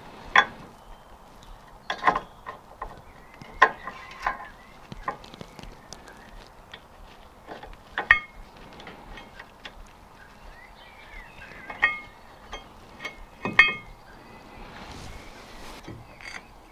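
Metal brake parts and tools clinking and knocking as a Mazda MX-5's rear brake caliper and pads are refitted by hand. The knocks are irregular, about a dozen, and a few of the louder ones ring briefly like metal on metal.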